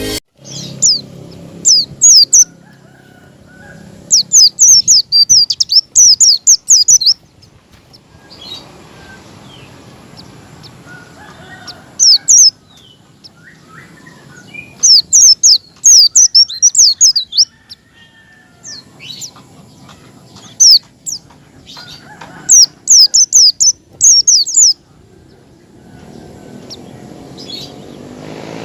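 White-eye (pleci) singing in the fast 'ngalas' style: phrases of rapid, high, downslurred chirping notes lasting one to three seconds, repeated with short pauses, over a faint steady background hiss. It is a lure recording meant to provoke caged white-eyes into singing.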